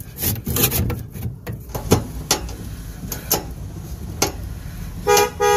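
Sharp, irregular clicks and ticks of a hand screwdriver driving screws into a metal floor vent grille. Near the end a car horn honks twice.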